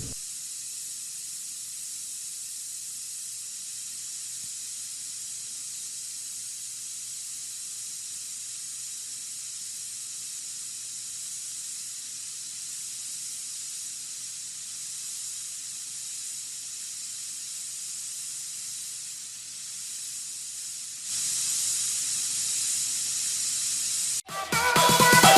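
Steady hiss of gas escaping from a gas cylinder, growing louder near the end. It cuts off abruptly and music starts in the final second.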